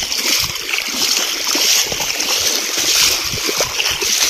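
Legs wading through shallow river water while hauling a drag net, giving a steady irregular splashing and swishing.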